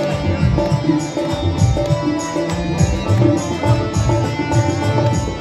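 Background music: an Indian-style instrumental with plucked strings over hand drums keeping a steady beat.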